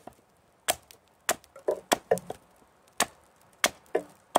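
Hults Bruk Almike hatchet chopping a point onto the end of a green alder stake held upright on a chopping block: about six sharp chops, roughly one every second or less, with fainter knocks between them.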